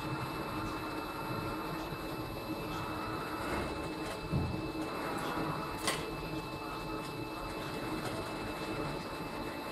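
Steady machine hum with a few faint steady tones, broken by a low knock about four seconds in and a sharp click about six seconds in.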